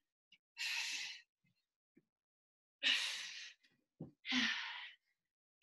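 A woman breathing hard through dumbbell burpees: three forceful, breathy exhalations, with a short soft thud about four seconds in.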